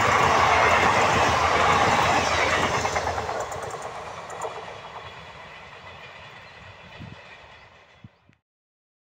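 Express passenger train's coaches rushing past at speed, wheels clattering on the rails, then the noise fading away as the last coach runs off into the distance. The sound cuts off abruptly a second before the end.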